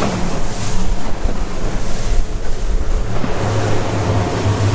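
Yamaha outboard engines of a 42-foot Freeman catamaran droning steadily while it runs at speed through rough seas, the hum getting louder about three seconds in. Rushing water and spray off the hull, with wind buffeting the microphone.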